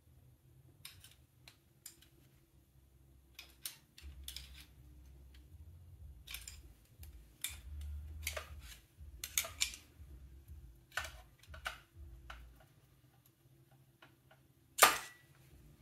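Flat screwdriver prying and scraping at the old oil pump on a Triumph T140V's timing case to work it loose: a string of short clicks and scrapes, with one louder, sharp knock near the end.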